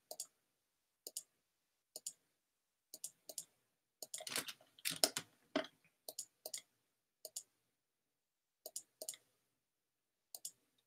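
Computer mouse clicking, each click a quick press-and-release pair, about one a second with a busier run about four seconds in.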